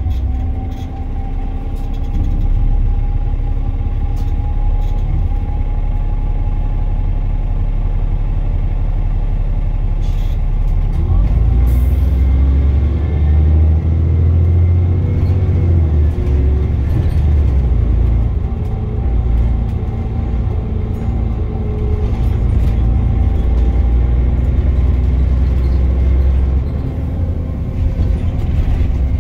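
Wright Gemini 2 double-decker on a VDL DB300 chassis with a Voith automatic gearbox, heard from inside the passenger saloon while under way: engine drone and a steady gearbox whine over road rumble. The low drone grows heavier about ten seconds in as the bus pulls harder, then eases near the end.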